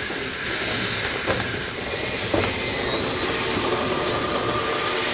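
Two-foot gauge steam locomotive hissing steam steadily, with two short knocks about one and two and a half seconds in.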